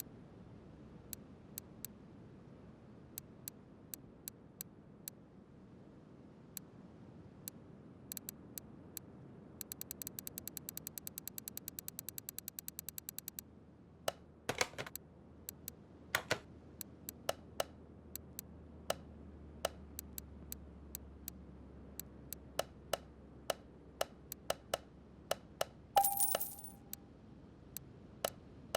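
Sharp metallic clicks and taps of small metal parts and tools being handled. They include a few seconds of evenly spaced clicking at about ten a second, a couple of louder knocks midway, and one metal piece struck or dropped with a brief ring near the end.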